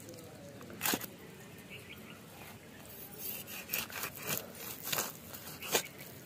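A large knife cutting a murrel fish into steaks on a wooden stump block: one sharp stroke about a second in, then a run of about six short strokes in the second half.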